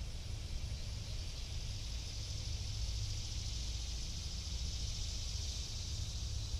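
Wind buffeting the microphone as a steady low rumble, with a steady high-pitched hiss over it that swells a little midway.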